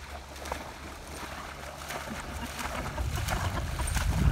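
Water splashing and sloshing as a chocolate Labrador retriever swims and then wades through shallow pond water, the splashing getting louder near the end.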